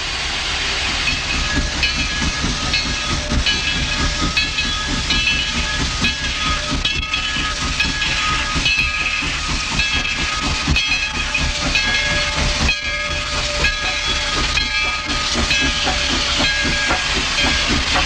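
Steam locomotive working under way, with exhaust chuffs and hissing steam, heard through an old Super 8 magnetic-stripe film soundtrack.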